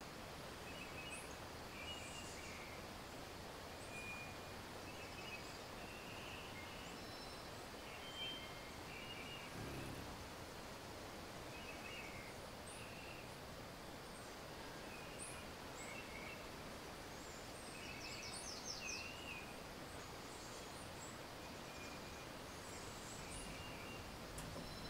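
Several birds calling over a steady, even hiss: short repeated chirps and whistles throughout, with a brief fast trill about three-quarters of the way through and a soft low bump near the middle.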